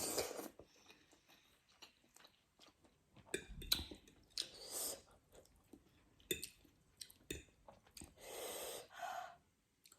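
Close-miked mouth sounds of a person eating noodles: scattered wet chewing clicks with a few short, noisy breaths, the longest near the end.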